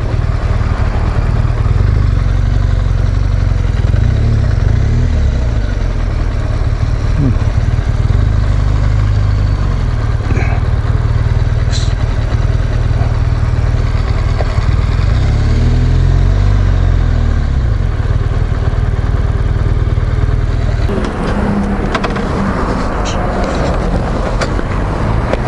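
BMW R1200GS boxer-twin motorcycle engine running on the move, a steady low rumble from the under-seat microphone. The engine pitch briefly rises and falls past the middle, and the sound changes near the end with a few clicks.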